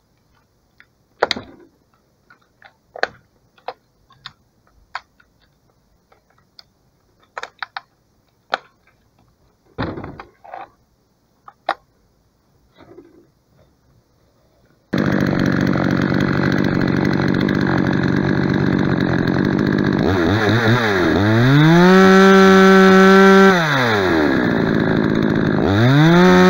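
A few scattered knocks and clicks, then about halfway through the modified Dedra 8713 two-stroke chainsaw, fitted with a 48 mm NAC CST 61 cylinder and piston, comes in loud and running. It runs at low speed, is revved up and held at high revs, drops back, and is revved up again near the end.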